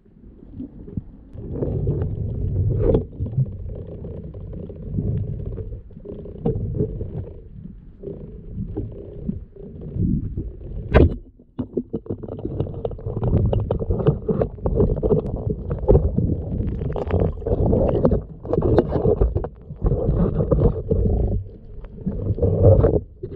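Muffled underwater rumble of water moving around a waterproof camera as a freediver swims over a reef, swelling and fading unevenly, with scattered clicks and knocks; the sharpest click comes about eleven seconds in.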